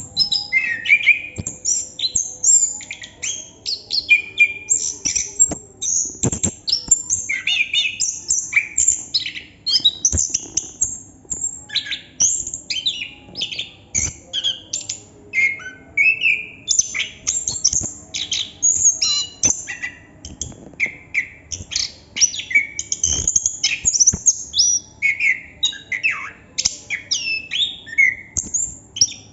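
Chestnut-capped thrush (anis kembang) singing its long rolling song without pause: a rapid, unbroken run of varied high chirps, trills and short whistled glides.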